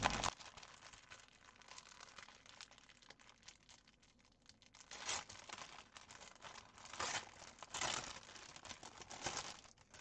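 Clear plastic bag of embroidery floss crinkling in short, scattered bursts as it is handled and the floss is pulled out, busiest in the second half.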